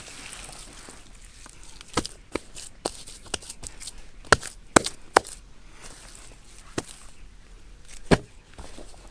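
Sharp knocks, about nine of them at irregular intervals, the loudest clustered in the middle and one more near the end.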